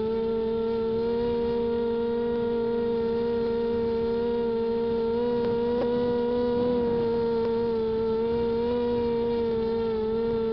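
The electric motors and propellers of a small RC quadcopter, the WLZX W500, heard from its onboard camera: a steady whine held at one pitch with overtones, wavering only slightly.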